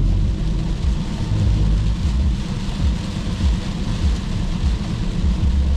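Cabin noise of a BMW sedan cruising on a highway in heavy rain: a heavy low rumble from road and wind over a steady hiss of rain and wet tyres.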